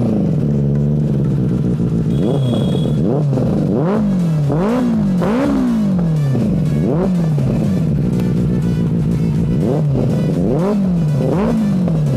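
Benelli 600i's 600 cc inline-four engine, fitted with an aftermarket exhaust, idling and revved by hand: about nine sharp throttle blips, each rising quickly and then falling back to idle, several coming in quick succession.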